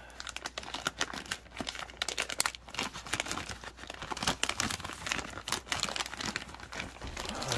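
Thin white plastic wrapping crinkling and rustling as hands pull it open around a drone, with dense, irregular crackles throughout.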